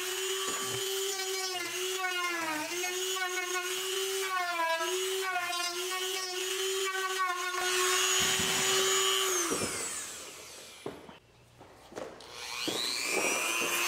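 Dremel rotary tool with a sanding drum grinding a fiberglass cowl: a steady high motor whine that dips in pitch again and again as the drum is pressed into the cut edge. About ten seconds in it winds down to near silence, then spins up again near the end.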